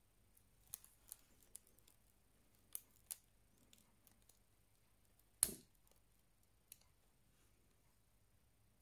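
Miniature spring-loaded metal toothpick gun being cocked and fired, with toothpicks striking a wax candle: a scatter of faint sharp clicks, the loudest a snap with a dull knock about five and a half seconds in.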